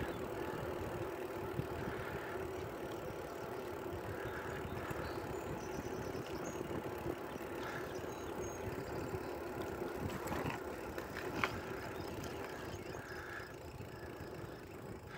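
Bicycle rolling on asphalt: steady tyre hum with wind noise, and a few light clicks about two-thirds through. The level eases near the end as the bike slows.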